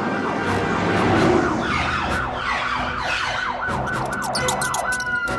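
Police siren: a rapid falling yelp repeating about four times a second, which changes near the end into one long tone that slowly falls in pitch.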